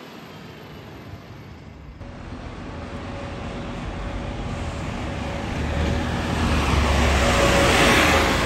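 Alexander Dennis Enviro400 MMC double-decker bus approaching and passing close by, its engine rumble, a steady whine and tyre noise growing louder to a peak near the end.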